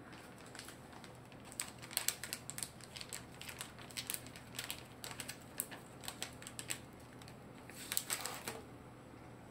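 A Shetland sheepdog chewing a hard treat: irregular crisp crunches and clicks, several a second, with a denser burst about eight seconds in.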